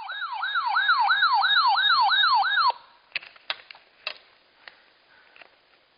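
A weather alert radio's built-in siren alarm, set off by a severe thunderstorm warning: a sharply sweeping tone repeating about three times a second, growing louder over the first second. It cuts off abruptly about two and a half seconds in, followed by a few faint clicks over quiet hiss.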